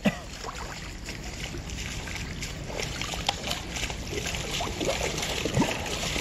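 Shallow river water splashing and sloshing as hands grope in a hole in the muddy bank, with short splashes that come more often and grow a little louder toward the end.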